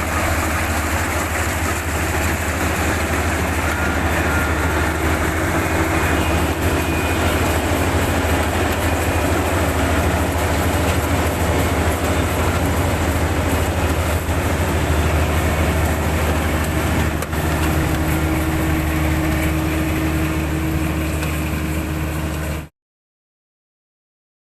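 Engine of a rice harvesting machine running steadily with a deep, constant rumble, then cutting off abruptly near the end.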